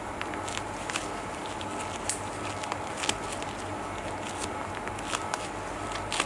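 Scattered light clicks and handling noises of plastic catheter connectors and drainage tubing being fitted with gloved hands, over steady room noise.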